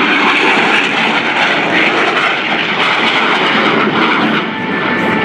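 Blue Angels F/A-18 Hornet's twin jet engines making a loud, steady roar as it flies past low, easing slightly near the end.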